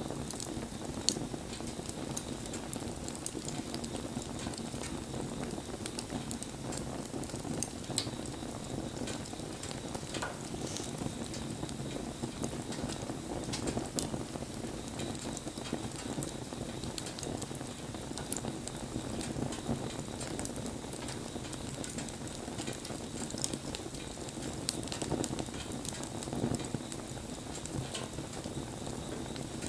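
Wood campfire burning: a steady rush of flame under constant fine crackling, with a few sharper pops scattered through.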